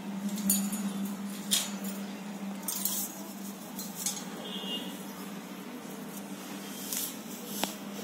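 Light clicks and clinks of a cockatiel's claws and beak on the wire bars of its cage, over a steady low hum, with a short high note about halfway through.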